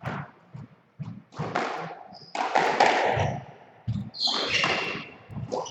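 Squash rally: rackets striking the ball and the ball knocking off the court walls, mixed with thudding footsteps and short high shoe squeaks on the wooden court floor.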